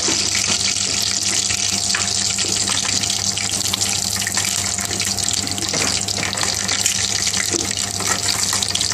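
Bay leaves and green cardamom pods frying in oil in an aluminium pan over a gas burner: a steady sizzling hiss, with a steady low hum underneath.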